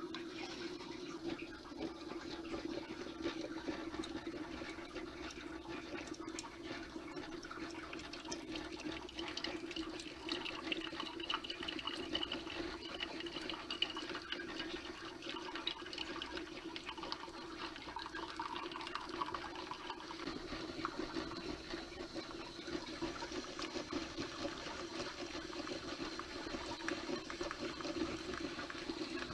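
Espresso maker brewing: coffee streaming and sputtering into a glass carafe, with a steady low hum from the machine.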